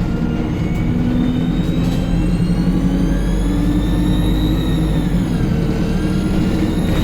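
ADL Enviro 200 bus engine pulling under load with a loud turbocharger whistle: a high whine that climbs steadily, dips briefly around five to six seconds in as the engine eases off, then climbs again.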